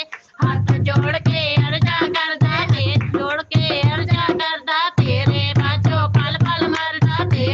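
Punjabi devotional song: a solo voice singing a wavering melody over steady low percussion, with short breaks between phrases.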